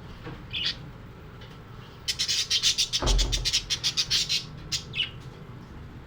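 Pet parrot chirping: one short high chirp, then about two seconds of rapid, high chattering chirps and a last chirp. A dull low thump comes about three seconds in.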